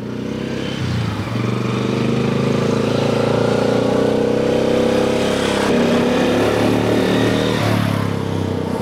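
1955 NSU Max Special 250's single-cylinder four-stroke engine running as the motorcycle is ridden past. It grows louder over the first second or so, holds steady, and fades near the end.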